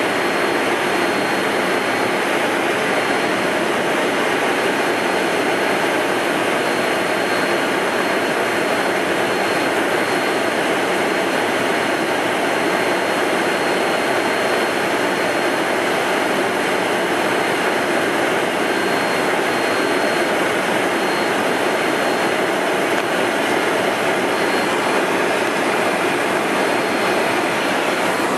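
Steady cockpit noise of an Embraer Phenom 100 climbing after takeoff: an even rush of airflow and the running of its twin Pratt & Whitney PW617F turbofans, with a thin high whine held at one pitch.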